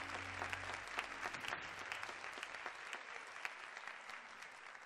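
Auditorium audience applauding, the clapping slowly dying away toward the end.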